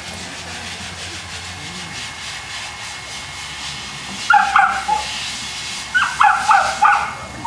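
Boston Terrier barking: two quick barks a little past halfway, then four more in fast succession near the end, over a steady background hiss.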